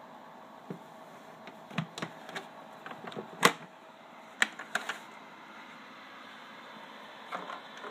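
The chrome latches and plastic lid of a Bell & Howell 1680 16mm projector's case being unclipped and lifted off: a string of sharp clicks and knocks, the loudest about three and a half seconds in, with a couple more near the end.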